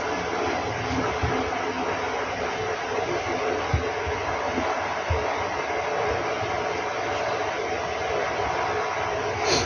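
Steady rushing air from a blower running without a break, with a couple of soft knocks partway through.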